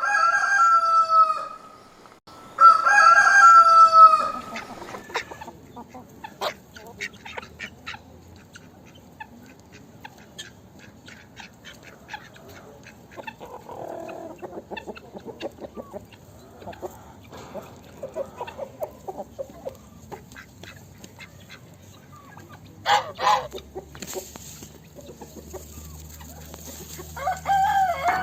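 A rooster crows twice, loud and drawn out, then chickens cluck with many short, quieter calls. Another crow-like call comes near the end.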